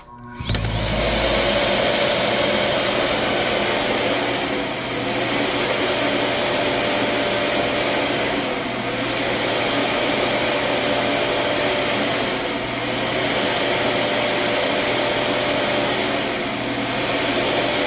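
Samsung Bespoke Jet All-in-One Clean Station's suction motor emptying the stick vacuum's dustbin: it starts about half a second in and runs loud and steady, dipping briefly about every four seconds as it pulses to suck the dirt out of the canister.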